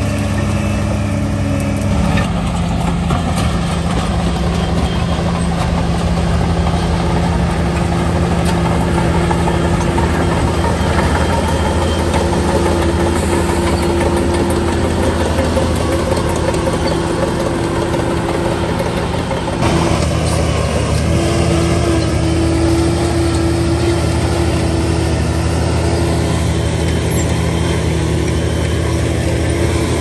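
Shantui DH17 bulldozer's diesel engine running steadily, its note shifting about two seconds in and again about two-thirds of the way through.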